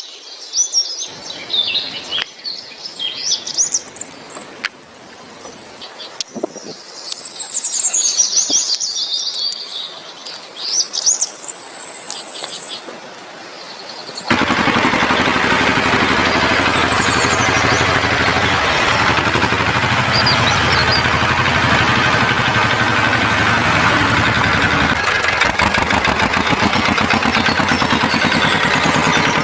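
High chirping and tweeting, bird-like, for about the first half. About halfway through it gives way suddenly to a loud, dense, steady noise.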